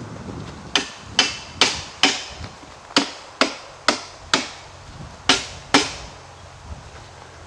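Ten sharp hammering knocks in three runs, about two a second, as the post of an archery target is pounded into the ground.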